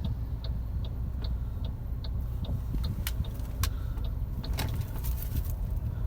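2021 Ford Territory driving over rough road, heard inside the cabin: a steady low road rumble, with light ticking about two to three times a second and a few sharp knocks and rattles from bumps around three to five seconds in.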